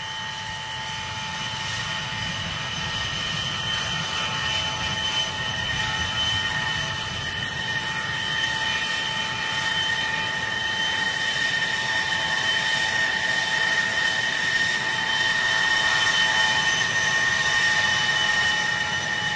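A-10 Thunderbolt II's twin TF34 turbofan engines at takeoff power on the runway roll: a steady high whine over a low rumble, slowly growing louder.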